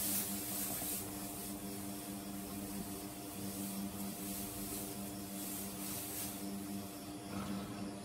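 A steady low hum with soft hissing swells rising and falling over it a few times.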